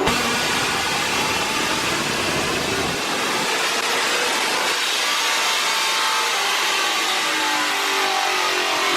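Paxton-supercharged car engine at full throttle on a chassis dyno during a power pull, loud and steady, with its pitch rising as the revs climb.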